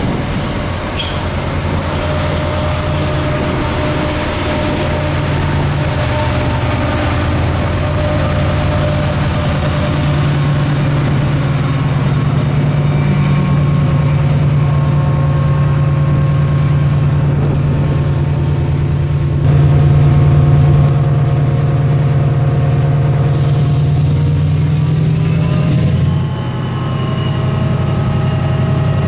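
Diesel train's engine running steadily while standing at a station platform. Its note steps up about twenty seconds in and drops back about twenty-six seconds in, with two short hisses of air partway through.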